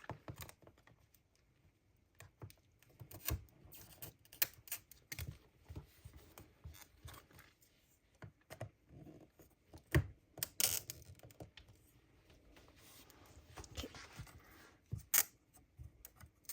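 Small acrylic standee pieces being handled and fitted together: irregular light clicks, taps and rustles of hard plastic, with a few sharper clacks about ten seconds in and again near the end.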